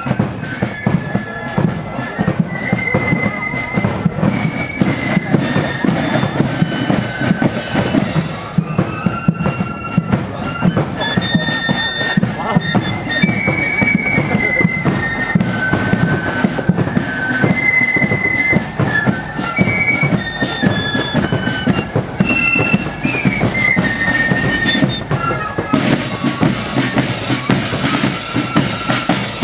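Marching flute band playing a march: a stepping melody on flutes over snare and bass drums, the drumming growing brighter and sharper near the end.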